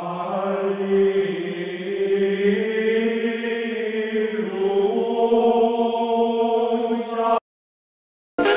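A long, steady, voice-like drone held at one pitch for about seven seconds, then cutting off abruptly.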